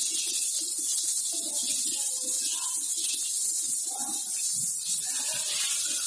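Steady high-pitched hiss, with faint indistinct voices underneath.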